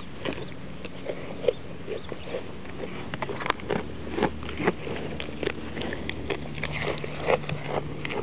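A goat grazing up close, biting off and chewing grass: irregular crisp snips and crunches, a few a second.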